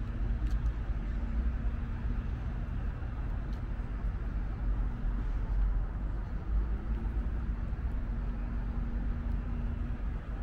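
Steady rumble of city road traffic, with a faint low hum that drops out briefly about halfway through and then returns.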